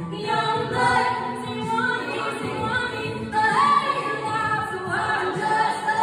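High school a cappella vocal group singing in harmony, a female lead voice carrying the melody over the group's backing voices.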